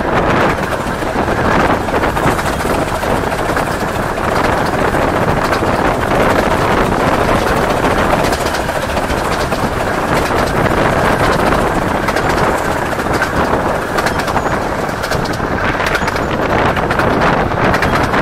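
Steady wind noise buffeting the microphone out of the window of a moving 15-inch-gauge miniature railway carriage, over the train's running noise on the track.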